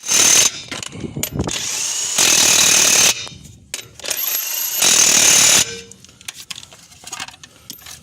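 Impact wrench running in three short bursts with a high whine, driving lug nuts onto a truck's rear wheels as the new tires are fitted.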